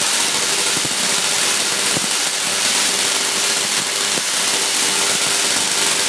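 Large Tesla coil firing, its lightning arcs striking a metal cage with a loud, continuous buzzing crackle.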